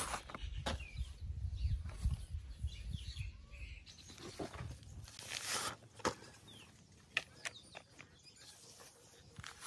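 Hands handling a root ball of potting soil and plastic pots, making irregular rustles, scrapes and soft knocks, with birds chirping faintly in the background.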